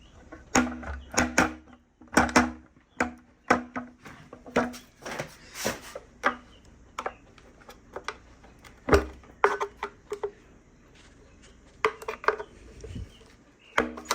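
Small metal engine parts and hand tools clinking and clanking as they are pulled out and set down during an engine teardown: a dozen or so sharp knocks, some ringing briefly like struck metal.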